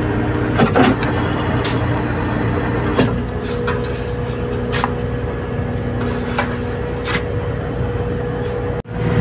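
Boat engine running steadily, its pitch shifting about three seconds in, with a few scattered knocks and scrapes from work on deck.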